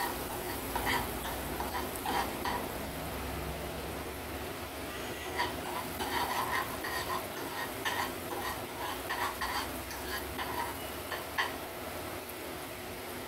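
Metal spoon stirring and scraping small grains around a black pan on a gas burner, in repeated short strokes over a light sizzle of hot oil.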